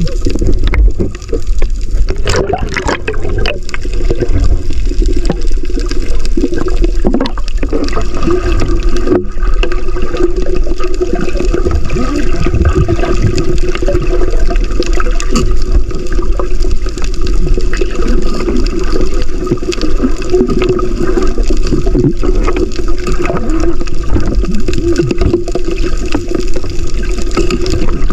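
Underwater sound picked up by a submerged camera: a muffled, steady rush of moving water with scattered clicks throughout. There is a brighter bubbling burst about two seconds in.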